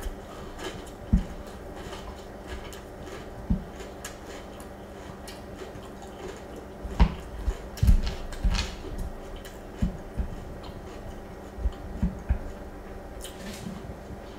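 Wooden spoon stirring and scooping milk-soaked cereal in a glass bowl: scattered soft knocks and wet clicks, several close together about seven to nine seconds in.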